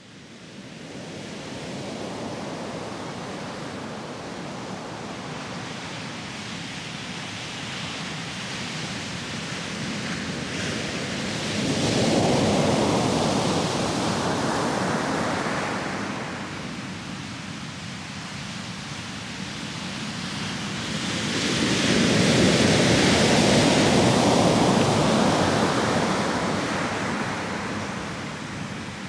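Heavy Mediterranean surf breaking on a sandy beach, the sea still rough after a storm: a continuous rush of water that fades in at the start and swells loudly twice as big waves crash, about twelve and twenty-two seconds in.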